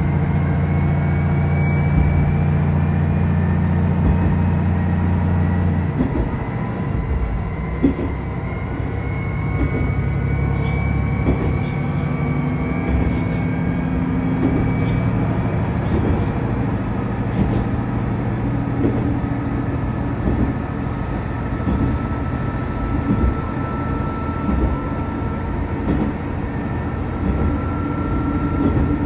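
Tosa Kuroshio Railway 8000-series diesel railcar under way. A steady low engine drone drops away about six seconds in, then the car runs on with wheels clicking over rail joints and a faint whine.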